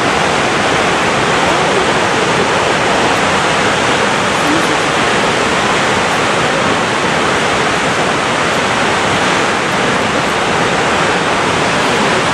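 Loud, steady rushing of a tall waterfall plunging over a rock cliff into its pool below.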